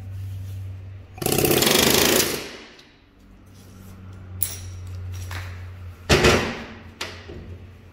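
Pneumatic air hammer rattling in a burst of about a second as it drives the inner tapered-bearing race out of a front brake drum. Two sharp knocks follow near the end.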